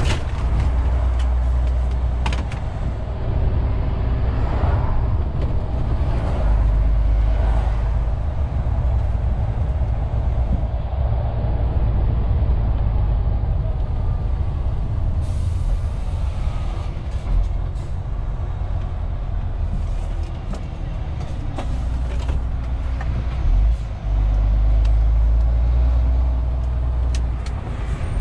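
MAN TGX 470 truck's six-cylinder diesel engine running with road noise, heard from inside the cab, with strong low rumble throughout.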